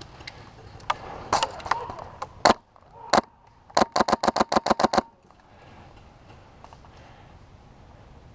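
Airsoft guns firing: a few single shots, then a rapid burst of about nine shots in just over a second, about four seconds in.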